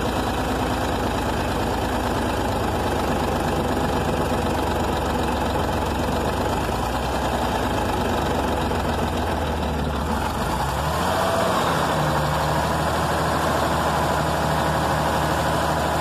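Detroit Diesel 6V92 two-stroke V6 diesel running steadily at idle after priming. Its speed picks up a little about ten to eleven seconds in and holds there. It is running on five cylinders, with one sticking injector disabled.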